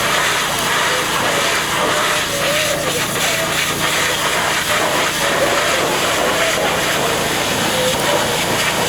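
Pressure washer's high-pressure water jet spraying steadily against a plush Elmo toy, a loud, even hiss that does not let up. A faint wavering voice, the toy's own singing, comes through the spray.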